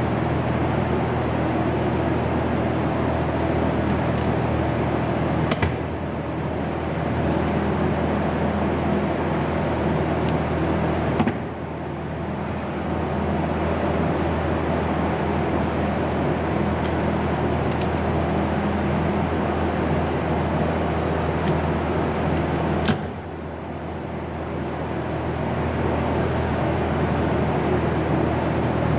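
A machine running with a steady low hum and a few light clicks. Its level drops briefly three times and builds back up each time.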